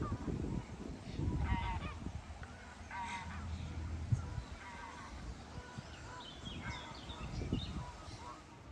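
Geese honking, a series of short calls repeated every second or so, over a low rumble.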